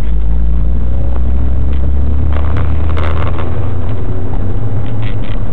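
Mitsubishi Lancer Evolution wagon's turbocharged four-cylinder engine running, a steady low drone heard inside the cabin.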